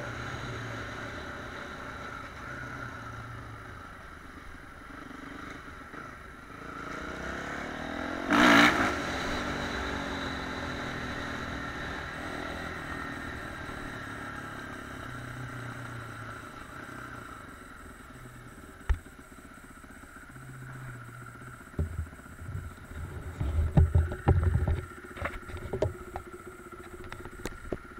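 A vehicle carrying the camera runs down a winding road with a steady running noise, and a loud brief rush about eight seconds in. Near the end come a series of knocks and thumps.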